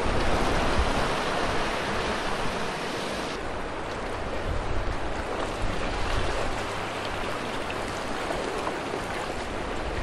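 Seawater washing and sloshing around shoreline rocks: a steady rush of moving water.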